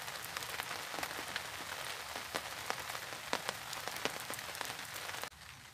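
Steady rain, with many single drops ticking sharply through the hiss. It cuts to a much quieter level near the end.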